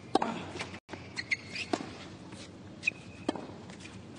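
Tennis rally sounds on a hard court: a sharp racket strike with a short grunt just in, then sneakers squeaking against the court and a few more sharp ball hits or bounces.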